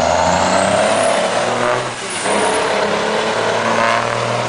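Diesel engines of semi tractors drag racing at full throttle, running loud as they accelerate down the strip. The sound dips briefly about two seconds in and picks up again.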